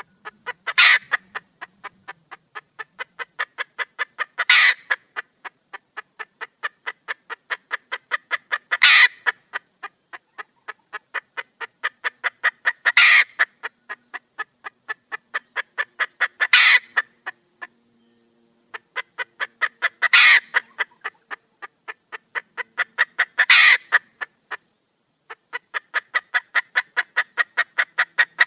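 Red junglefowl hen calling: runs of quick clucks that grow steadily louder, each ending in a loud harsh squawk, repeated about every four seconds, seven times over.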